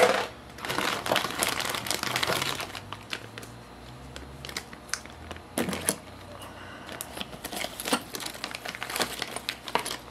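Clear plastic zip bags crinkling and rustling as they are handled and pulled open, loudest in the first couple of seconds, followed by scattered small crackles and clicks.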